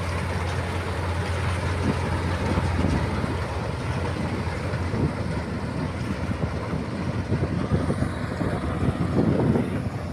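Combine harvester at work: machine noise with a low engine hum that fades in the first second, followed by uneven crackling noise.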